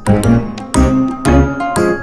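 Upbeat background music with a steady beat and bright bell-like melody notes.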